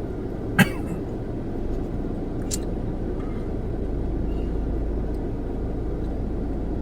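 Steady low rumble of a car idling, heard inside the cabin, growing a little deeper about a second and a half in. A short sharp sound comes about half a second in, and a faint click about two and a half seconds in.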